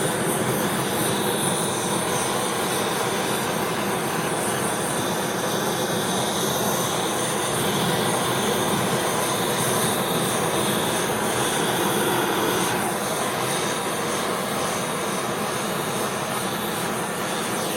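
Handheld torch burning with a steady hiss, played over wet poured acrylic paint to bring cells up to the surface.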